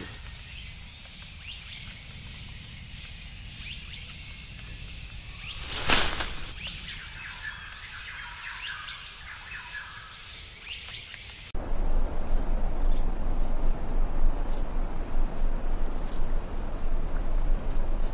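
Forest ambience: steady insect drone with scattered bird chirps, and one sharp knock about six seconds in. About eleven seconds in it cuts abruptly to a louder, even noise with a low rumble under the steady insect tones.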